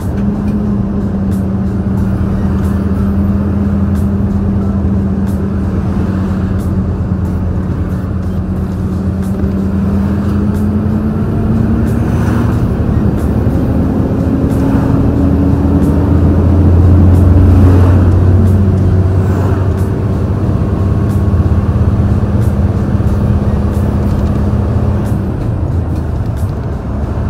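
Stock large truck's diesel engine pulling hard uphill at full throttle, heard from the cab through a slightly open window. The engine note holds steady, climbs in pitch through the middle, then drops abruptly about two-thirds of the way in and settles back to its earlier pitch.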